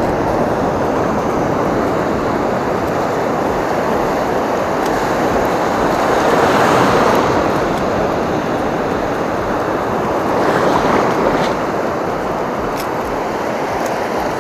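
Steady rush of waves and surf with wind, swelling louder twice, about halfway through and again a few seconds later.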